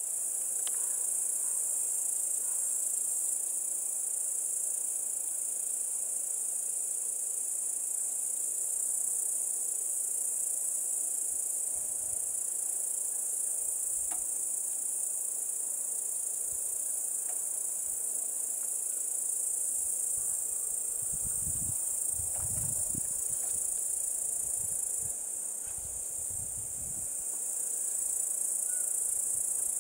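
A steady, high-pitched chorus of insects singing in the meadow grass. Low rumbles come and go in the second half.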